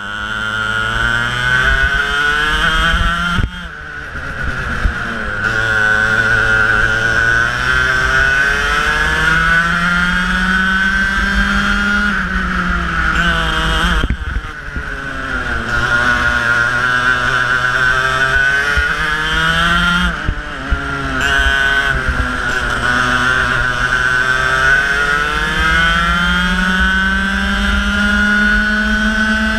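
Kart engine heard from on board at racing speed. Its pitch climbs steadily for several seconds, then drops sharply about three times as the driver lifts for corners, and climbs again out of each one.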